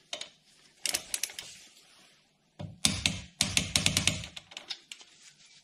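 Ratchet head of a torque wrench clicking in two quick bursts, a short one about a second in and a longer one a little later, as the brake caliper bolts are tightened to 28 Nm.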